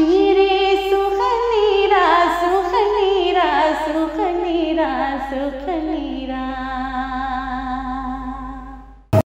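A woman singing a naat unaccompanied: a long, ornamented melisma on a vowel that winds downward, settles on a held low note and fades out. A sharp click just before the end.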